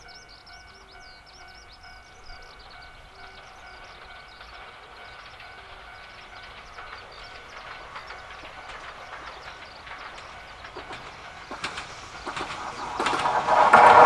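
A Yoro Railway train approaching and growing steadily louder, then passing close near the end with loud wheel clatter. In the first few seconds, a faint repeating tone and high chirps can be heard under the train noise.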